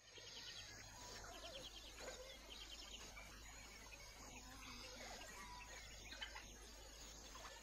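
Faint natural bush ambience at dawn: scattered distant bird calls and insect chirping over a low steady hiss.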